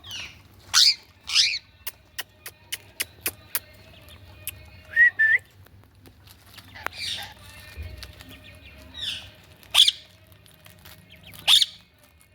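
Indian ringneck parakeet giving loud, harsh screeching calls that sweep down in pitch, about six spread through, with a run of sharp clicks about two seconds in and a short two-note whistle around the middle.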